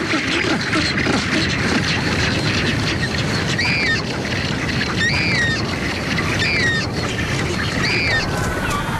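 Rockhopper penguin colony: a dense din of calling birds, with a chick's short high begging peeps repeated four times about every second and a half in the second half.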